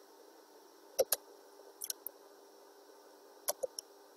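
Computer mouse clicks: a quick double click about a second in, lighter clicks near two seconds, and three more in quick succession near the end, over a faint steady hum.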